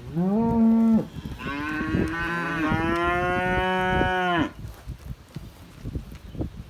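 Cows mooing: a short moo, then after a brief gap a longer moo of about three seconds.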